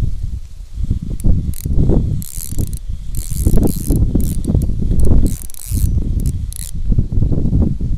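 Shimano Ultegra 2500 spinning reel cranked on a bent ultralight rod, its mechanism whirring and clicking in several short bursts between about two and seven seconds in. Gusty low rumbling of wind on the microphone runs under it and is the loudest sound.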